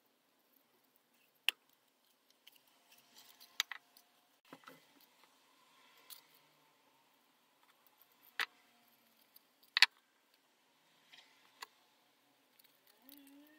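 Copy paper rustling and crinkling as folded paper-craft parts are handled and pressed into shape, with a few sharp clicks and taps from tweezers against the paper and table.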